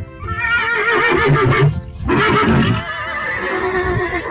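Horse whinnying twice, two long wavering neighs, one right after the other.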